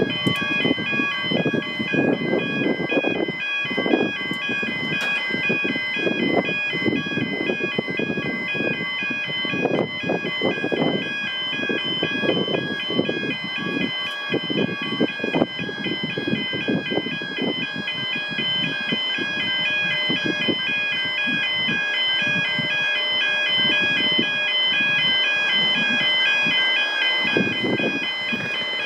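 Level crossing warning alarm sounding continuously, an electronic tone that switches back and forth between two pitches at an even rate. An uneven low rumble runs underneath.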